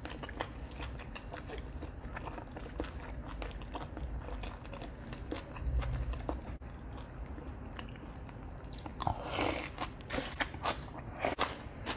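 Close-up sounds of a person chewing a piece of stewed beef tendon, with small wet clicks throughout. A few louder bursts of eating noise come near the end.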